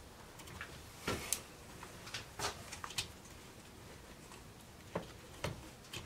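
Irregular light clicks and taps of plastic and small metal parts as hands handle the wiring and power switch inside the opened motor housing of a Bosch 1617 router.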